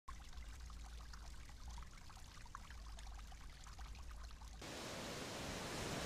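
Floodwater bubbling and trickling up out of an overflowing storm-drain manhole, over a low rumble. About four and a half seconds in it cuts abruptly to a steady, louder hiss of wind and surf.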